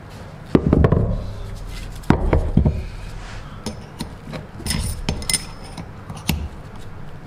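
Hammer blows on metal, knocking the bearing races out of Honda Civic rear wheel hubs: a string of irregular strikes, several in the middle ringing metallically.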